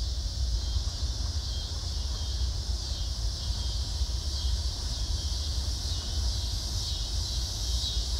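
Steady outdoor ambience: a continuous high insect chorus over a low, unsteady rumble of wind on the microphone.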